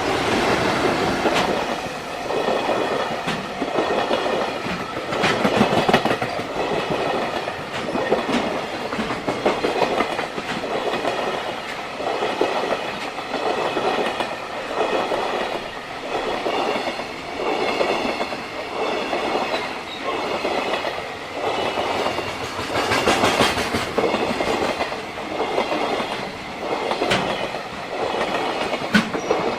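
Freight train wagons rolling past at close range, their wheels clattering over the rail joints in a pulse about every one and a half to two seconds as each wagon goes by. A high, wavering ringing comes from the wheels on the rails.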